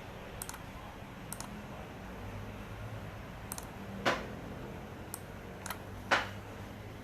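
A few scattered light clicks, with two louder sharp knocks about four and six seconds in, over a faint low steady hum.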